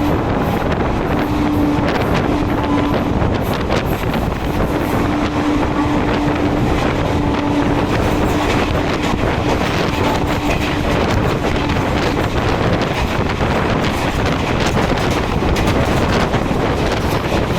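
Passenger train running at speed, heard from on board: a steady rush of wind on the microphone over the rumble and clatter of wheels on the track. A faint steady hum comes and goes.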